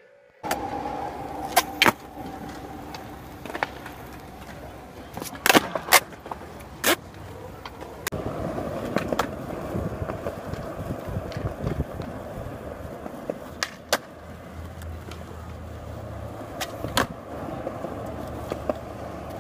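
Skateboard wheels rolling on smooth concrete, with several sharp clacks of the board popping and landing during tricks.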